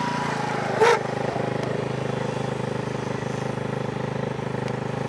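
Small engine of a youth quad bike running at a steady speed as it is ridden along a dirt track. A short, sharp, loud sound cuts in about a second in.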